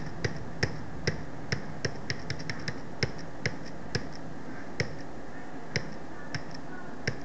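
Computer keyboard keys pressed one at a time: a string of sharp single clicks, quicker in the first three seconds and then more spaced out, over a faint low steady hum.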